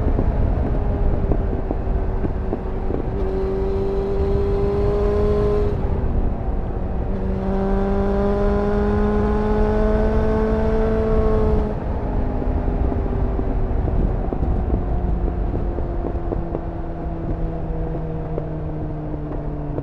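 2001 Suzuki GSF 600 Bandit's inline-four engine through a GPR Furore Nero aftermarket exhaust, heard onboard while riding. The revs climb under throttle about three seconds in, dip briefly, climb again, then the throttle closes about twelve seconds in and the engine note winds slowly down.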